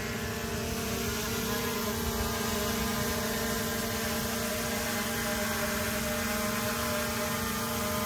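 DJI Mavic Air 2S quadcopter hovering close by, its propellers making a steady buzzing whine that holds one pitch.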